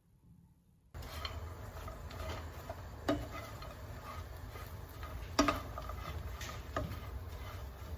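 A few sharp light clicks and knocks, about three, over steady low room noise that starts suddenly about a second in.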